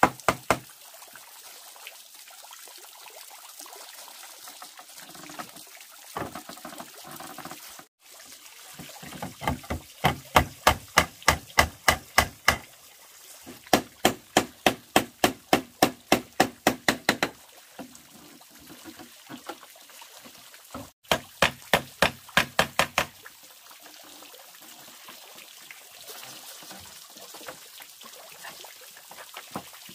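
Wood being knocked rapidly, about four or five blows a second, in runs of a few seconds each. Between the runs, a small fountain splashes steadily into the pond.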